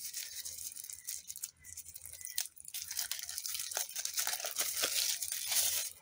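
Thin plastic wrapping crinkling and rustling as hands pull it off a battery pack, in quick scratchy bursts with a couple of short pauses.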